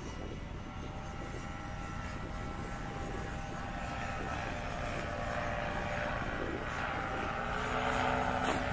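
Paramotor engine and propeller running steadily in flight, a hum that grows louder toward the end as it comes closer.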